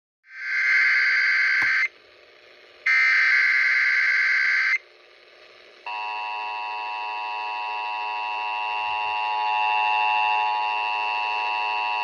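Emergency Alert System activation heard over FM radio: two data bursts of the SAME header, each under two seconds, then from about six seconds in the steady two-tone EAS attention signal.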